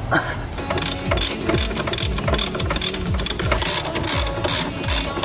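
Ratchet wrench clicking in an even rhythm, about four strokes a second from about a second in, as the brake caliper's mounting bolts are run in.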